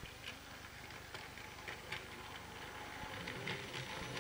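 Battery-powered Plarail toy train running on plastic track: the light steady rattle of its small motor and wheels, with irregular clicks as it rolls over the track joints and points.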